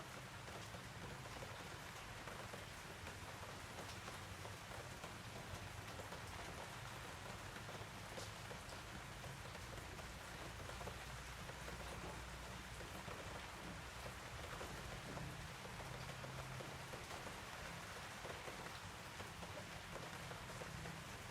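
A steady, faint hiss of even noise with no distinct sounds standing out.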